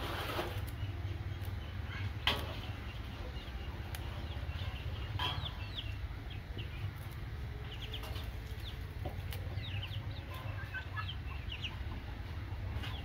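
Chickens clucking and giving many short high chirps over a steady low rumble. A few sharp snaps come near the start and again around two and five seconds in, as water spinach stems are broken by hand.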